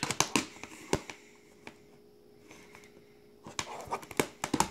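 Plastic Blu-ray case being handled and turned over by hand, giving clusters of sharp clicks and light knocks, in the first second and again from about three and a half seconds in.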